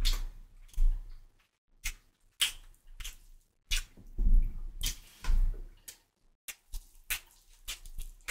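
Close-miked eating of piri piri chicken and rice: irregular wet mouth clicks and lip smacks with chewing, heaviest around the middle, where softer low thuds come through under the clicks.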